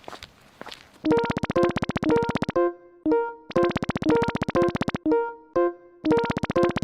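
Synthesizer music starting about a second in: loud buzzy electronic tones in passages of about a second and a half, separated by short pitched notes, repeating. Before it, faint soft swishes.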